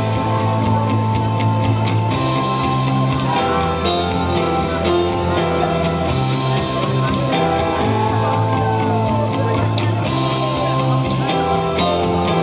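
First-dance song playing loudly and steadily: guitar-led music with some singing.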